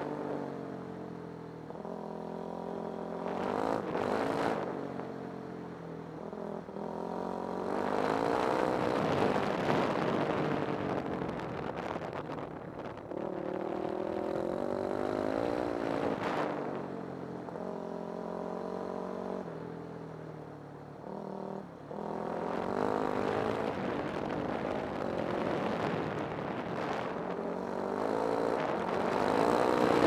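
A vehicle's engine running on the move, its revs climbing and dropping back several times as the vehicle speeds up and slows.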